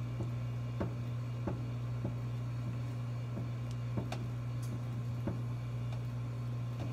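Faint, light clicks about once or twice a second as brass flare nuts are turned hand-tight onto the fittings of a refrigeration sight glass, over a steady low hum.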